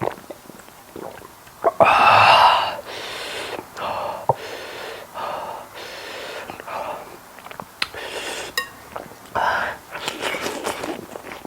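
A person eating while breathing hard through the mouth: a series of noisy, wheezy breaths in and out, the loudest about two seconds in, with a few small clicks between them.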